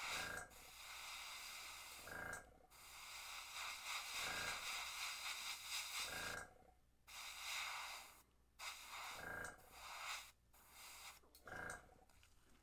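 Gravity-feed airbrush spraying paint: a hiss of air that breaks off briefly several times as the trigger is let go and pressed again, with a soft pulse about every two seconds.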